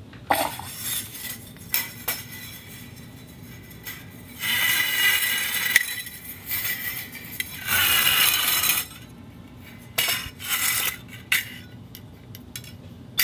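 Dog bowl being knocked about: sharp clinks and taps, and twice a longer ringing rattle with a steady metallic tone.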